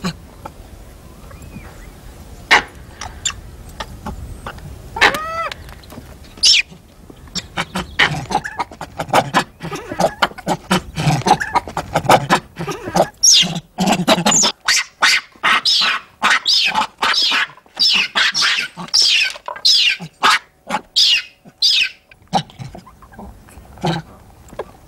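Monkeys screeching: a run of short, shrill calls, about two a second, through the second half, after an earlier single call and scattered clicks and knocks.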